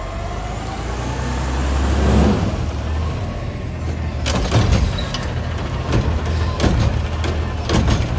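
Automated side-loader garbage truck's engine running steadily, with a rising whine over the first two seconds. From about four seconds in, a string of sharp knocks and hisses sounds over the engine.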